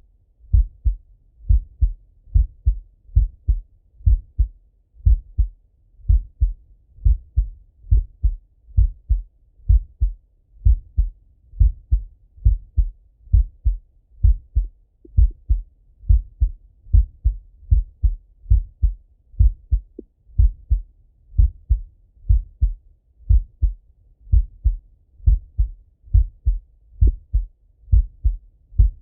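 A man's heartbeat heard through a stethoscope pressed to the chest: a steady, slow rhythm of paired lub-dub thuds, about one beat a second.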